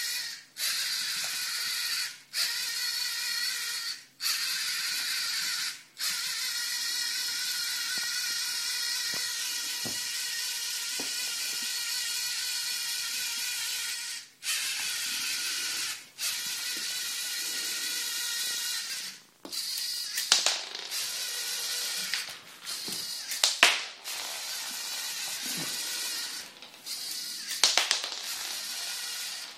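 Lego Mindstorms NXT servo motors whining steadily as the tracked robot drives, cutting out briefly several times as it stops and changes direction. In the last third, several sharp loud clicks and knocks cut through the motor whine.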